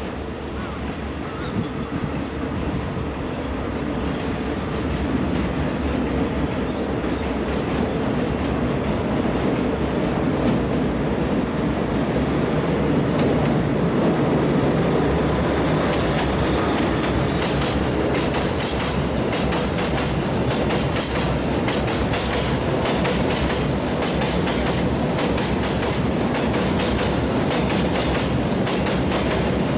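Diesel freight locomotive ND602 approaching across a girder bridge, its engine and running gear growing steadily louder for about the first fifteen seconds. Then a long string of Hoki 9500 hopper wagons passes close by, their wheels clattering quickly and continuously over the rail joints.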